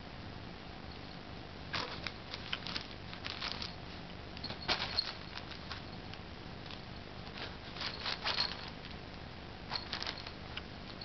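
Nylon play tunnel rustling and crinkling in several short bursts as a kitten paws at it and scrambles over it.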